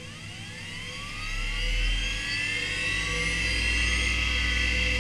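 Quantum Bigfoot CY 3240AT 5.25-inch, 3600 rpm hard drive spinning up at startup: the spindle motor's whine rises in pitch and grows louder over the first two to three seconds, then settles into a steady whine over a low hum at running speed.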